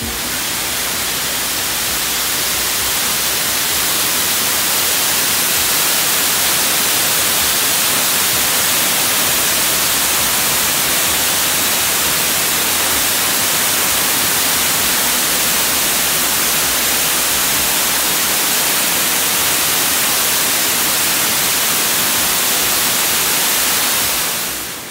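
Water pouring over the face of an overflowing masonry dam, spilling its full reservoir after heavy rain: a loud, steady rushing hiss that fades out near the end.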